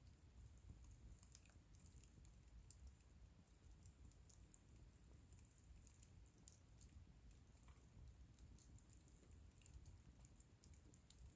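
Faint crackling of a wood bonfire: irregular small snaps and pops over a low, steady rumble.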